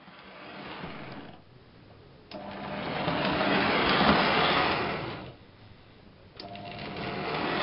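O gauge three-rail toy train running past: the MTH RailKing GP-30 mechanism's electric motor whirring and the metal wheels of the sheet-metal coaches rumbling over the track. It swells and fades in three stretches, loudest about four seconds in, with sudden jumps in level about two seconds in and near six seconds in.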